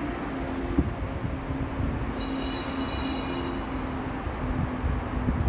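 Outdoor city ambience: a steady low rumble with a hum running through it, and a high whistling tone for about a second and a half in the middle.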